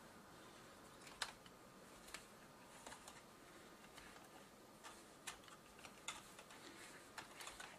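Faint, scattered small clicks and ticks, about half a dozen, as a small flat tool and fingers push cables into the plastic routing channel beside a laptop's screen hinge.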